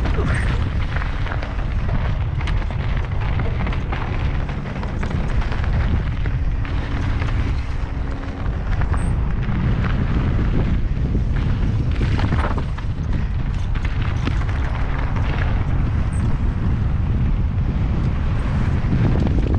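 Heavy wind rumble on a helmet-mounted camera's microphone during a fast mountain-bike descent, with scattered clicks and rattles of the tyres and bike over the rough dirt trail.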